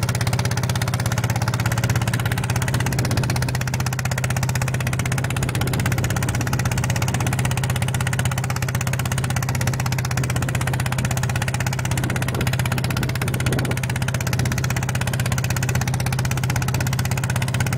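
Jao Krathing ride-on mini tractor's engine running steadily under load as it pulls a disc plough through the soil, a constant low hum.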